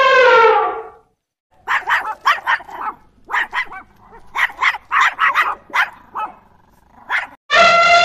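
The end of an elephant's trumpet call, dropping in pitch, stops about a second in. A small dog then barks in quick clusters of short, high barks. Near the end a second elephant trumpet starts.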